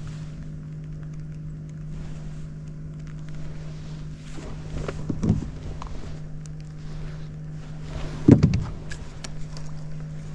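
A small electric motor hums steadily in a boat. Two short clusters of bumps and knocks sound against the boat, one about five seconds in and a louder one about eight seconds in.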